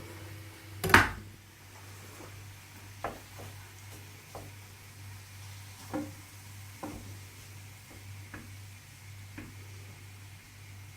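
A toaster lever pushed down with one loud clack about a second in, followed by faint, scattered taps and clicks of a utensil moving steak and mushrooms around a frying pan, over a steady low hum.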